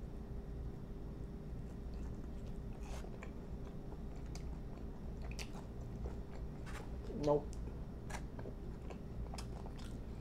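Chewing and biting on fried lemon pepper chicken wings: scattered wet mouth clicks and light crunches. A brief hum from the eater's voice comes about seven seconds in.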